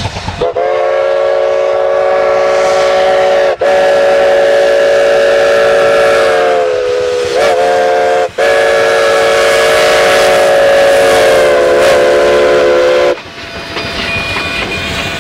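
Chime steam whistle of narrow-gauge 2-8-2 locomotive No. 488 blowing for a grade crossing: long chord blasts with two very brief breaks and slight pitch wavers, cutting off about 13 seconds in. The locomotive's running clatter and steam follow.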